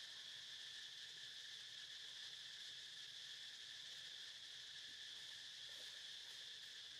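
Faint, steady insect chorus: a continuous high-pitched drone that neither rises nor falls, with no breaks.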